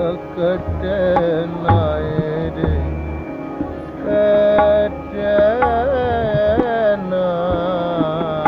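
Indian music with tabla drumming under a sustained, wavering melodic line.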